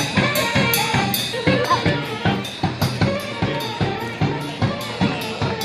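Live brass-band music: a steady drumbeat at about three to four hits a second under a sousaphone bass line and other pitched instruments.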